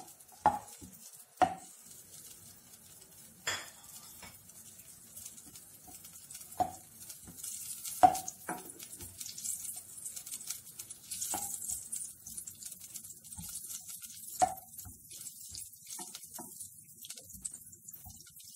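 Butter melting and sizzling in a nonstick saucepan as a spatula stirs it, the spatula knocking against the pan several times. The faint hiss of the sizzle grows after about seven seconds.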